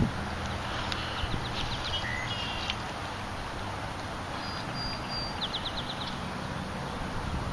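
Small birds chirping in a few quick runs of high notes, with a short high whistle in the middle, over a steady low rumble.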